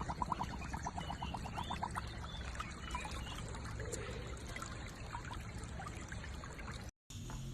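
Water trickling steadily, with a fast, even run of soft ticks in the first two seconds. The sound cuts off abruptly near the end.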